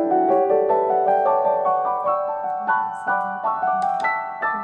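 Background piano music: a gentle melody of notes struck in quick succession over held chords.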